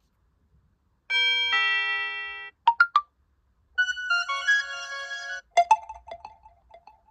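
Huawei P60 Pro ringtone or alert tones: short electronic chimes in several phrases, first a held chord that changes once, then three quick short notes, a run of bell-like notes, and finally plucked notes that die away near the end.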